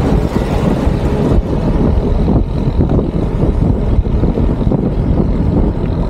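Wind rushing over the microphone of a bicycle-mounted action camera while riding, a loud, uneven low buffeting.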